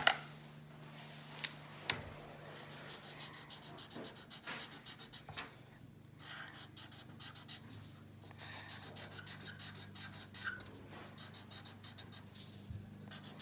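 Felt-tip marker scratching across paper in quick back-and-forth colouring strokes, coming in bursts with short pauses. Two sharp clicks sound about one and a half and two seconds in.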